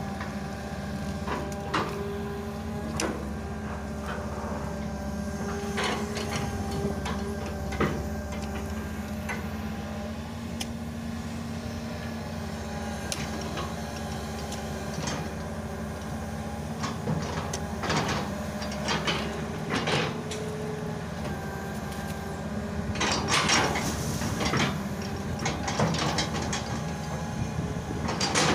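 Long-reach Hitachi excavator's diesel engine running steadily as it digs, with scattered clanks and knocks from the arm and bucket, thickest about three-quarters of the way through.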